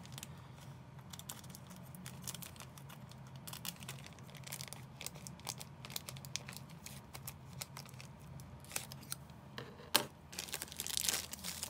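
Scissors snipping open a thin clear plastic bag, with the plastic crinkling and rustling in small irregular clicks. A sharper click comes about ten seconds in, followed by a brief burst of crinkling as the bag is handled.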